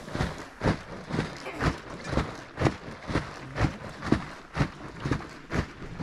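A hanging churn bag swung back and forth on a wooden tripod, the liquid inside slapping and sloshing with each stroke in a steady rhythm of about two a second: yogurt being churned to separate butter from buttermilk.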